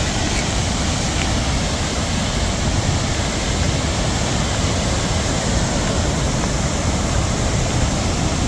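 Gullfoss waterfall's steady, loud rush of falling water, mixed with a low rumble of wind buffeting the microphone.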